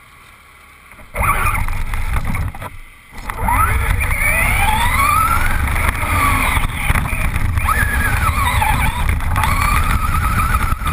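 Nitro RC car's small glow engine starting up about a second in, then revving up and down as the car drives over gravel, its pitch rising and falling with the throttle.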